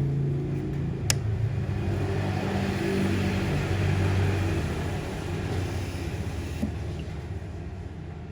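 A low, steady motor or engine hum that fades toward the end, with one sharp click about a second in.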